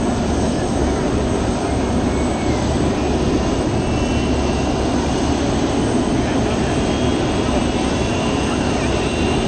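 Jet aircraft engines running at a distance: a steady rushing drone with a faint high whine that slowly rises in pitch, over a heavy low rumble.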